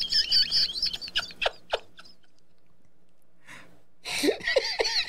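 High-pitched, squealing, warbling laughter in two bouts, with a gap of about two seconds between them.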